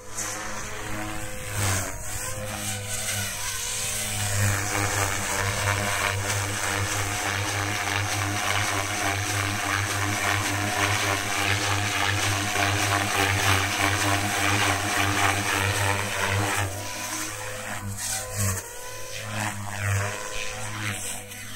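Compass Warp 360 electric RC helicopter flying aerobatics: its brushless motor and main rotor blades running continuously. The pitch sweeps up and down near the start and again near the end as the rotor is loaded in manoeuvres, and holds steady through the middle.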